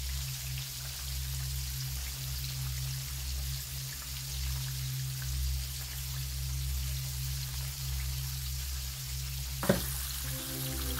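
Breaded fish fillets deep-frying in olive oil, a steady crackling sizzle over a steady low hum. A single sharp knock sounds near the end.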